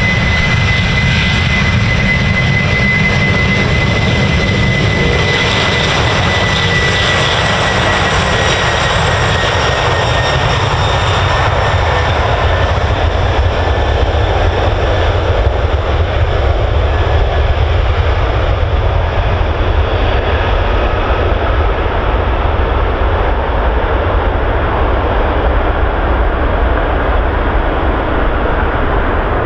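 Boeing 747's four jet engines at takeoff thrust as it rolls down the runway: a loud, steady roar and rumble. A high whine over it slowly drops in pitch and fades over the first dozen seconds as the jet moves away.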